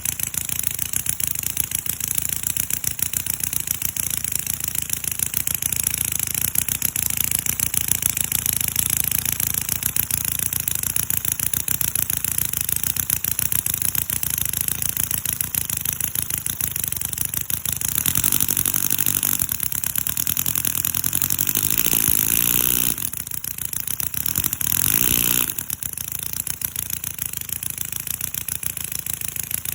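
CISON FG-VT157 miniature V-twin four-stroke model engine running steadily with a rapid, buzzy exhaust beat. About eighteen seconds in it revs and its pitch shifts for a few seconds. Around twenty-three seconds it drops back briefly and blips once, then settles back to its steady running.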